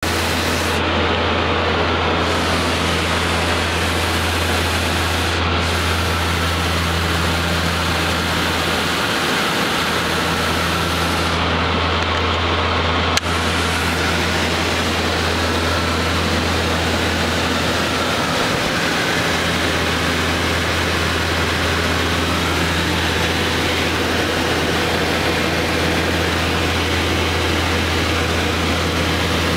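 Steady engine drone inside the cabin of a small passenger aircraft: a strong low hum with a fainter steady tone above it and an even hiss over the top. A single sharp click about 13 seconds in.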